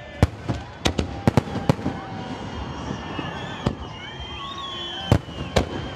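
Aerial firework shells bursting overhead. There are sharp bangs in a quick cluster in the first two seconds, then more spaced out, with the loudest bang a little after five seconds.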